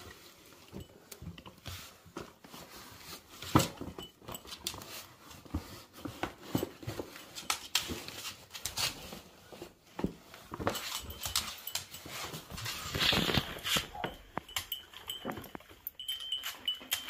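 A dog moving about and rummaging: irregular short rustles and clicks, with a louder stretch about thirteen seconds in.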